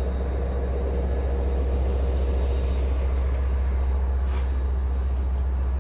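EMD DE30AC diesel locomotive and its bi-level passenger train running with a steady low rumble as the train draws up at the platform, with a brief hiss about four seconds in.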